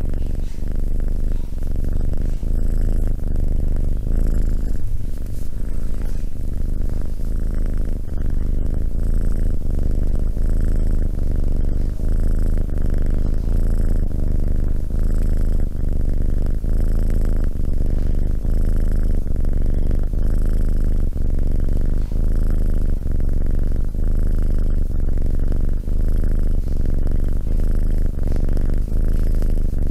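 Tabby kitten purring steadily into a close microphone, in an even rhythm that swells about once a second.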